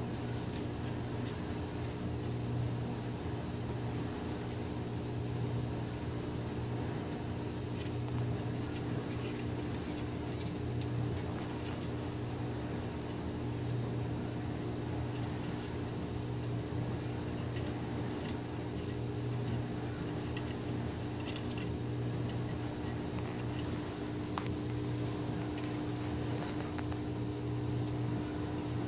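Steady hum of a running household machine, with a low drone and a higher steady tone, unchanging throughout. A few faint short taps or scratches come through here and there.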